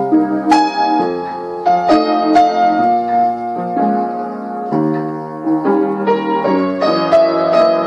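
Background piano music: a slow melody of struck notes over sustained chords.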